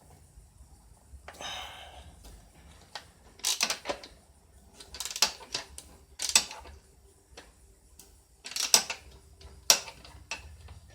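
Irregular sharp clicks and knocks from hardware being worked by hand, about five of them spread unevenly, with a short rustle about a second in.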